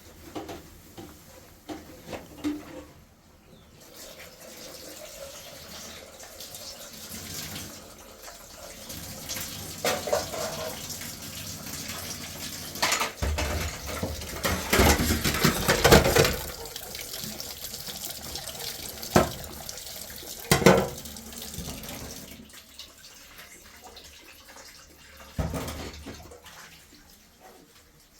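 Running water splashing, with a few knocks and clatters. It is loudest about halfway through and fades toward the end.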